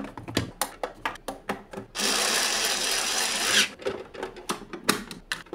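Plastic and metal casing parts of a toy piggy bank clicking and knocking as they are fitted together. In the middle, a power screwdriver runs for about a second and a half, driving a screw into the casing.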